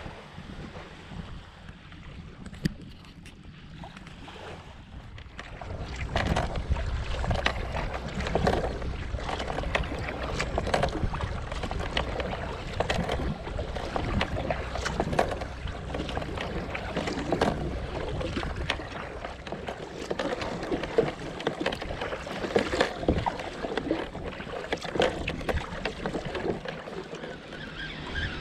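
Water sloshing and splashing against a fishing kayak's hull on choppy sea, with wind on the microphone. It is quieter for the first few seconds, then louder, with frequent irregular splashes and knocks.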